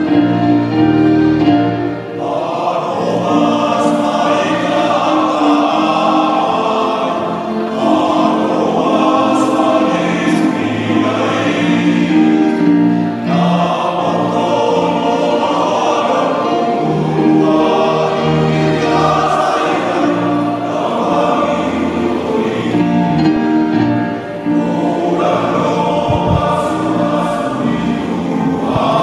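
A hymn sung by many voices together over electronic keyboard accompaniment, in long phrases with short breaks between the lines.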